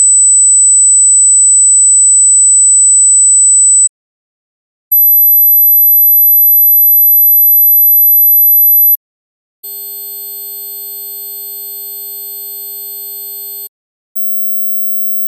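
Hearing-test tones: three pure sine tones of about four seconds each with short gaps, stepping up in pitch, the first near 8 kHz and the second near 12 kHz, both loud and piercing. The third is quieter and distorted into several pitches.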